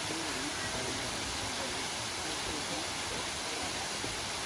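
Waterfall rushing as a steady, even roar of water, with faint voices of people in the background.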